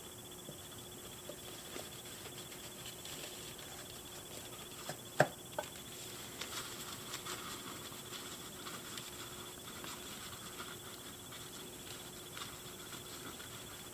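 Light handling of a plastic doll and its doll stand while the doll is fitted onto the stand: scattered soft ticks and rustles, with one sharp plastic click about five seconds in and a smaller one just after.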